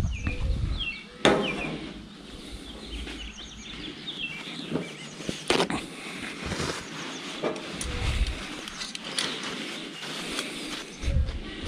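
A few sharp knocks and clacks, the loudest about a second in and another near the middle, from a plastic measuring cup being set down and steel tongs being handled. Short high chirps of birds sound here and there behind.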